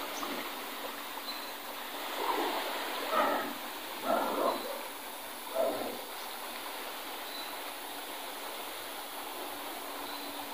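A few short animal calls, spread from about two to six seconds in, over a steady outdoor hiss.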